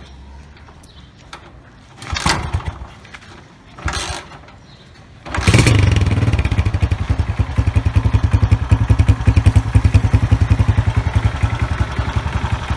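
Honda CG125's single-cylinder four-stroke engine being kicked over: two short bursts that die away, then it catches a little past five seconds in and settles into a steady, even idle with a rapid regular beat through its stock Atlas Honda silencer. The owner says the engine sounds like new.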